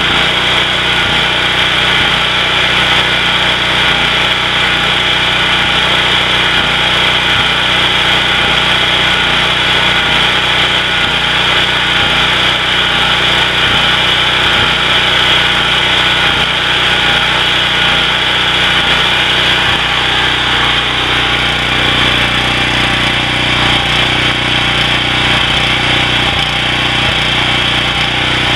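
Generator engine, a 9 HP Briggs & Stratton Vanguard overhead-valve engine, running steadily at constant speed.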